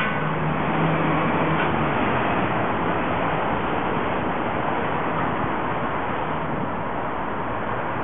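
Steady street traffic noise, with a low engine hum from a passing vehicle in the first couple of seconds.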